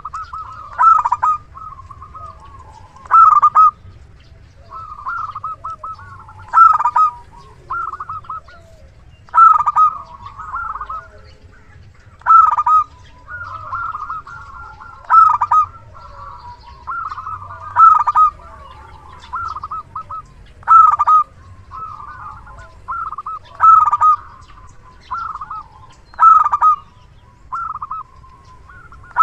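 Zebra dove (perkutut) in full song, cooing repeatedly: loud phrases of quick coos about every two and a half to three seconds, with softer notes between them.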